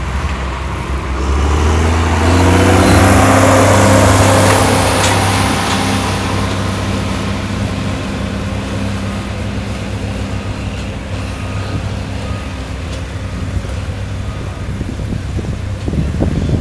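John Deere tractor engines running as they drag a leveling bar and a weighted packer over a pulling track. The engine note rises over the first few seconds and is loudest a few seconds in as one tractor passes close, then settles to a steady run.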